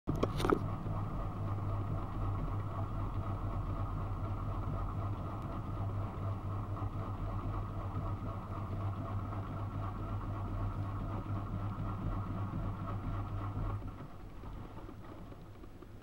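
Miele front-loading washing machine running through its first rinse: a steady low hum with water noise, with a couple of clicks at the start, stopping about 14 seconds in.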